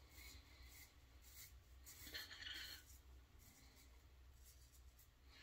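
Faint rasping of a Focus Slim AL shavette blade cutting lathered stubble against the grain, in short strokes a few times a second, with a longer scrape about two seconds in.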